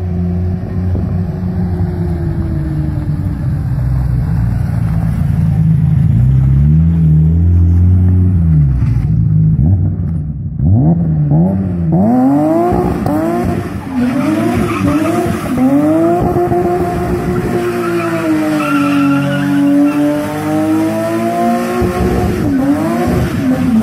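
BMW M5 drifting: the engine revs rise and fall as the car slides on loose dirt. About halfway through the revs are held high and the rear tyres squeal in long, wavering howls as they spin on concrete in a smoky burnout.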